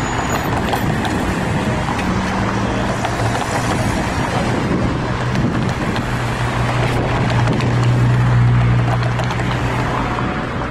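City intersection traffic: cars driving past and a tram moving through the junction, with a steady low hum that swells about eight seconds in and fades just before the end.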